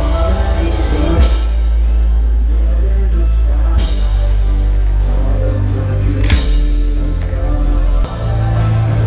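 Loud live band music through a concert sound system: heavy steady bass and drums, with sharp crash hits about a second, four seconds and six seconds in.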